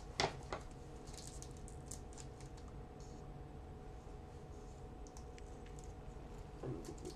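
A pack of 2007 Topps football cards being handled: a sharp crinkle of the pack near the start, then scattered light clicks and rustles of cards and wrapper, over a faint steady hum.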